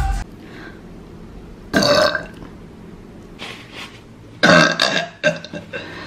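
Women burping: a short burp about two seconds in, then a louder, longer burp about four and a half seconds in that breaks up into a few smaller ones.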